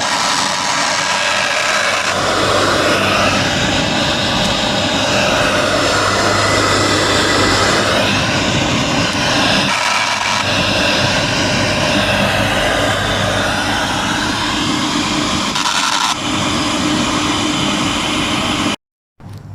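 Carrier furnace inducer vent motor running with a loud, steady hum and a rubbing, scraping noise from its plastic fan wheel: the sign of a cracked inducer wheel. The sound cuts off suddenly near the end.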